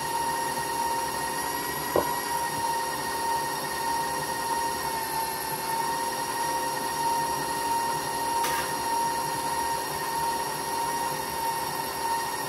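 Electric stand mixer running steadily with a high motor whine, beating an egg into the creamed butter and sugar. A sharp click about two seconds in.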